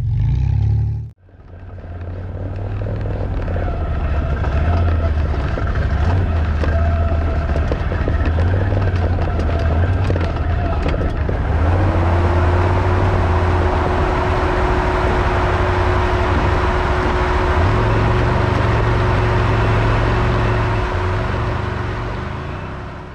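Off-road vehicle engine running under load at changing revs, rising and falling in steps. About halfway in a steady whine joins it over a thicker hiss.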